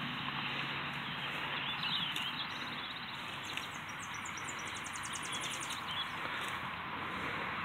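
Steady outdoor background noise with small birds chirping, including a fast high trill of rapid repeated notes about four to six seconds in.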